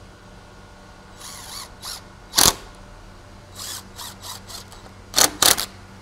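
Power drill-driver running in short bursts, driving bugle-head screws into PVC trim; the loudest bursts come about two and a half seconds in and twice near the end.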